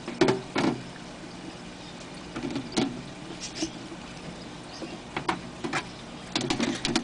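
A feeder mouse scurrying over newspaper in a snake enclosure, its feet making short bursts of scratchy rustles and clicks that come and go every second or two.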